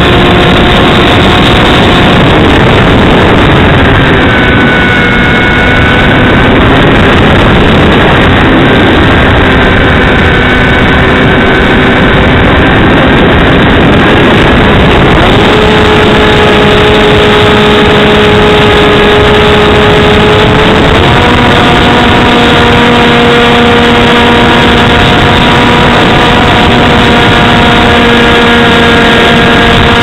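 Electric motor and propeller of a Hawk Sky RC plane, carried on board, running with a steady whine under heavy wind rush on the microphone. The whine drops slightly about two seconds in, then steps up in pitch with throttle about halfway through, again about two-thirds through, and once more at the very end.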